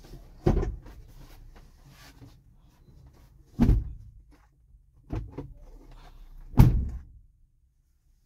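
Four heavy thuds and knocks inside a truck cab as things are handled and moved during cleaning, the last one the loudest.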